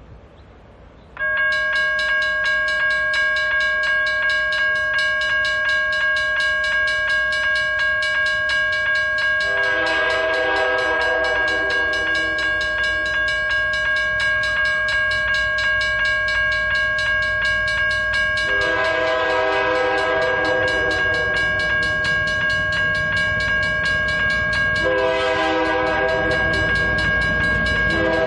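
A railroad crossing warning bell switches on suddenly about a second in and rings steadily and fast. Over it the horn of a Portland & Western freight locomotive sounds the crossing signal: a long blast about ten seconds in, a longer one near twenty seconds, and a third near the end.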